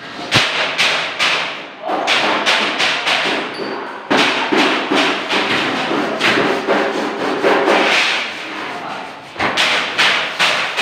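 Hammer blows in quick runs, about three a second, with a few short breaks.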